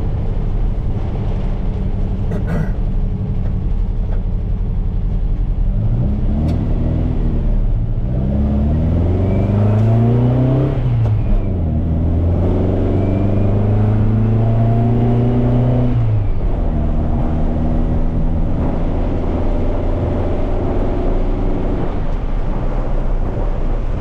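1968 VW Baja Bug's engine heard from inside the cabin on the road. It runs steadily, rises in revs about eight seconds in, dips briefly at a gear change, pulls again, then drops back to a lower steady note after about sixteen seconds.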